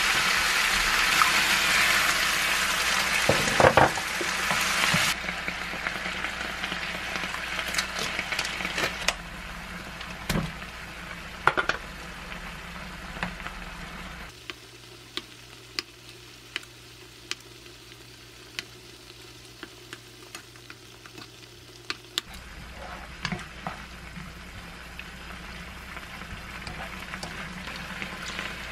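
Zucchini, onion and seasoning sauce sizzling in a frying pan while being stirred with a wooden spoon, with scattered clicks and knocks of the spoon on the pan. The sizzle is loudest for the first few seconds, then weakens. It drops to a faint simmer for several seconds in the middle, and a gentler sizzle returns near the end.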